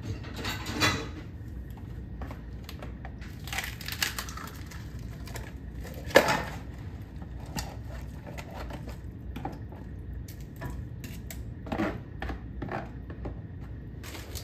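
Plastic takeout container and spatula knocking and scraping against a nonstick frying pan as food is tipped and pushed out into it: scattered clicks and knocks, the loudest one about six seconds in.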